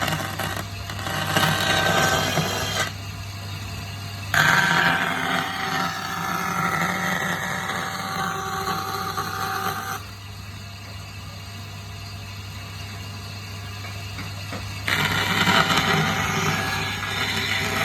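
A power tool running, with three louder stretches that start abruptly, the middle one lasting about five seconds, over a steady low hum.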